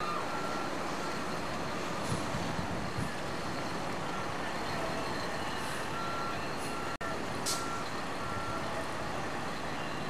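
A truck's reversing alarm beeping at an even pace, clearest in the second half, over a steady rumble of engines and traffic.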